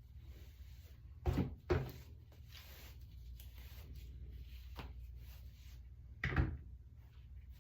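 Three dull knocks over a low steady hum: two close together about a second in, and one more near the end.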